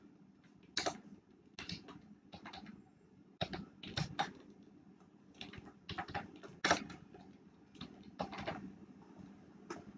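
Computer keyboard keystrokes: short, irregular taps, singly and in small clusters, with pauses between them as code is typed and deleted.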